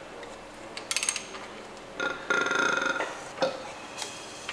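Crankshaft of a Ford 1.8 TDCi diesel engine being turned over by hand with a long bar on the crank pulley bolt. The tool and engine give short metal clinks, and there is a louder rasping sound lasting most of a second, starting about two seconds in.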